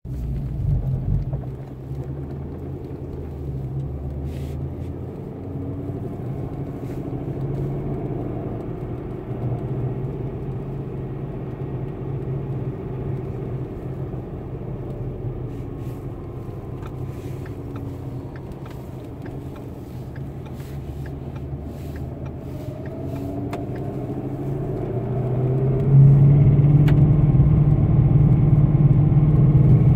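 Car engine running on the move, with a rubbing noise tied to engine speed that sounds like a fan rubbing or hitting something. The engine note rises in pitch and gets louder about 26 seconds in. The owner finds the noise tied to rpm rather than the wheels or road, and worst when the car is cold and below 4000 rpm.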